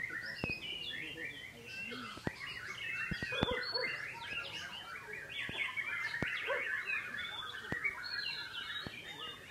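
White-rumped shamas (murai batu) singing: a dense, unbroken stream of rapid, varied chirps and trills from several birds at once, with a few sharp clicks scattered through it.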